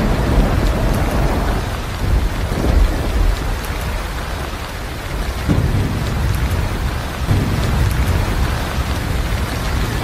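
Steady heavy rain with thunder rumbling in several deep swells.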